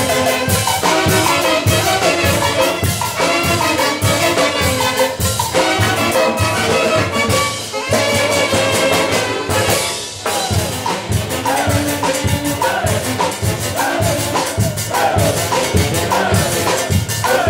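Live dance band of saxophones playing a fast Latin-style tune over a drum kit with timbales, congas and a metal shaker keeping a steady beat. Near the end the horns slide up and down between notes.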